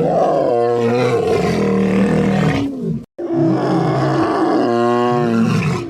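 A big cat roaring: two long, rough roars split by a brief silent break about three seconds in.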